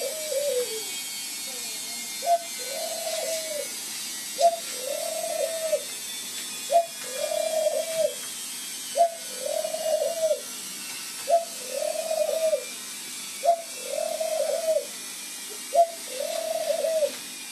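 A dove cooing over and over, the same phrase about every two and a quarter seconds. Each phrase is a short sharp note followed by a longer, arched coo.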